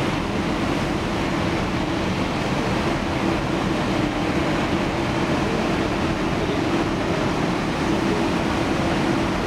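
Heavy trucks' engines running: a steady noise with a constant low hum.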